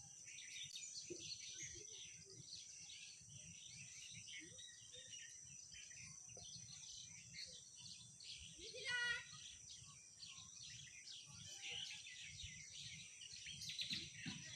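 Many small birds chirping and twittering together in a dense, continuous chorus, with one louder, rising call near the middle.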